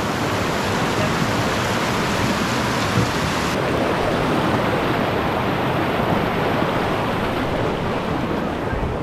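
River water rushing steadily over rocks.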